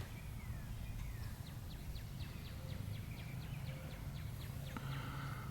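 Faint outdoor ambience: a bird chirping in a quick series of short, evenly spaced high chirps, about three a second, over a low steady hum, with a single click near the end.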